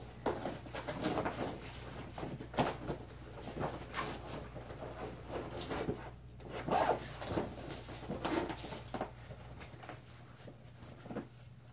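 Cloth rustling and handling noises as a fabric item is shaken out and folded, with scattered light clicks and knocks.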